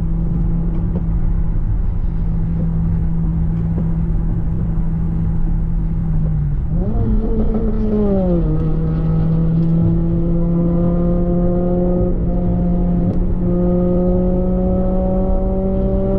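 Car engine heard from inside the cabin, pulling steadily under acceleration. About seven seconds in the revs rise quickly, then drop back a second later at a gear change. The engine note then climbs slowly through the next gear.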